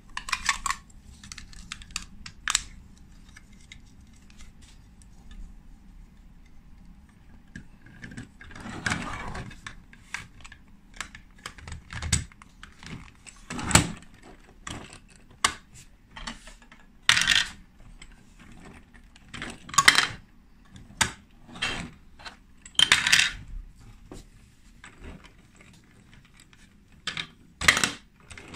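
Hard plastic Lego Duplo bricks and truck parts clicking and clattering as they are handled and snapped together, in irregular sharp clicks with a few louder knocks.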